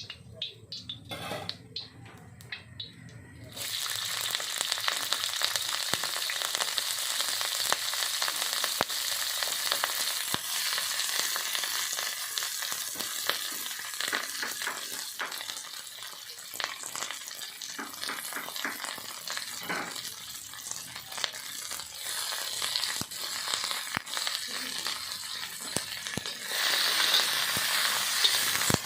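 Chicken chow stir-frying: food dropped into a hot pan starts sizzling loudly after a few clicks of utensils, then keeps sizzling while a spatula scrapes and taps against the pan. The sizzle swells louder near the end.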